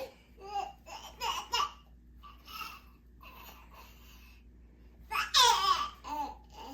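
Baby babbling and laughing in short bursts, the loudest and longest a little over five seconds in.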